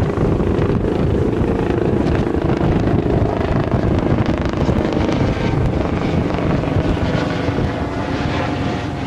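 Small harbour tour boat's engine running steadily under way, with heavy wind buffeting the microphone.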